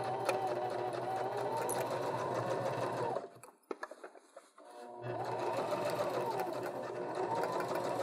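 Janome HD3000 electric sewing machine stitching a seam through layered fabric, its motor pitch rising and falling with speed. It stops about three seconds in, leaving a few light clicks, and starts again about two seconds later.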